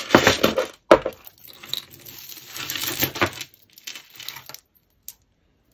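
A tangled pile of costume jewellery chains, faux pearls and beads clinking and jangling as a hand sifts through it. The jangling stops about a second before the end.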